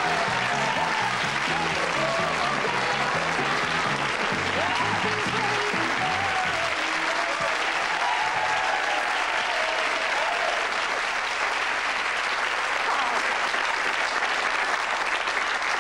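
Studio audience applauding steadily, with band play-on music under the clapping that fades out about halfway through while the applause carries on.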